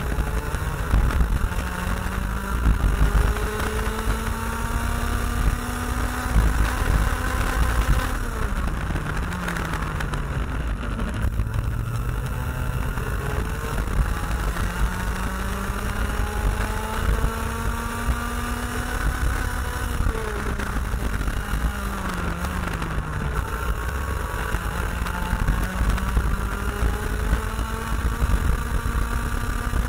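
IAME X30 125cc two-stroke kart engine heard onboard at racing speed. It winds up slowly in pitch on the straights and drops sharply off throttle into corners, about eight seconds in and again about twenty-one seconds in, before pulling up again.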